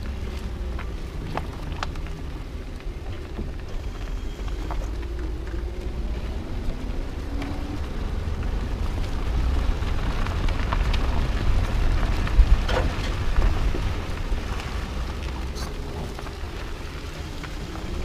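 A 2009 Nissan Altima Hybrid's tyre rolling along a leaf-strewn dirt track, heard close to the wheel: a low rumble with crackling and scattered clicks from leaves, twigs and grit, and a faint engine tone rising and falling underneath. It grows louder through the middle, with a sharp knock about two-thirds of the way through.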